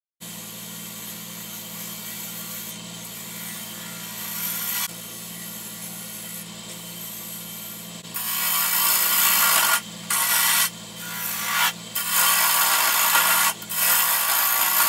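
Wood lathe motor humming steadily at low speed while a hand-held turning tool cuts the outside of a spinning chokecherry goblet, the wood hissing against the edge. From about eight seconds in the cuts get louder, coming in passes of a second or two with short breaks between them.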